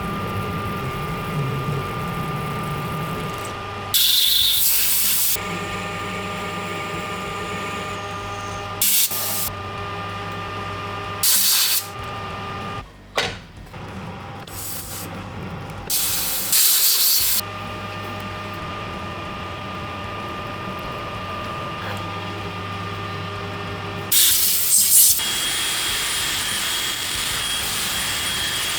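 Metal lathe running with a steady hum and whine while machining a steel bar. It is broken several times by loud hissing stretches, the longest near the end.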